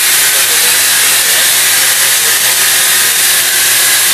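Loud steady hiss with a faint low hum underneath.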